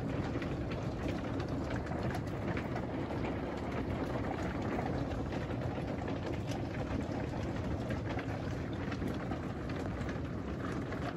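Thunderstorm hail with rain falling steadily on a pickup truck and gravel ground: a dense, even hiss sprinkled with many small sharp ticks of hailstones striking.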